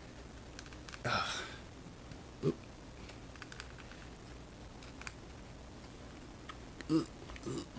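Faint clicks and ticks of plastic action-figure parts being handled as the small head is fitted onto the neck, with a breath about a second in and a couple of short vocal grunts.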